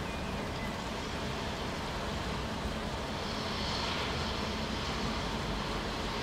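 Steady outdoor background noise of falling rain over a low, distant rumble, swelling slightly about three and a half seconds in.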